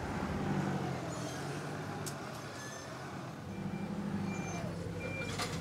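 Engine of a heavy working vehicle running steadily, its pitch rising slightly near the start; in the second half a reversing alarm beeps three times.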